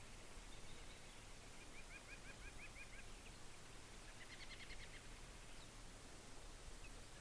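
Faint bird calls: two runs of quick, repeated rising notes, the first starting about a second and a half in and lasting over a second, the second a little after four seconds in, over a steady low background noise.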